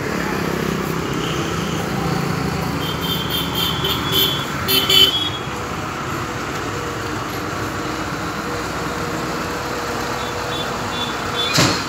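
Steady running hum of a Powerol diesel generator set, strongest at first. A few short high-pitched toots come about three to five seconds in, and one sharp click near the end.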